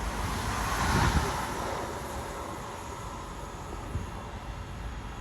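Passing train: the wheel and rail rumble swells to its loudest about a second in, then slowly fades as the train moves away.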